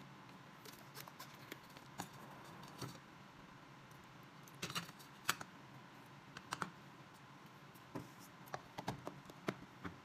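Scattered light clicks and taps of plastic cookware being handled: a microwave egg cooker and a bottle of water set down and moved, and the cooker's dome lid fitted onto its base. The taps come in small clusters, about halfway through and again near the end.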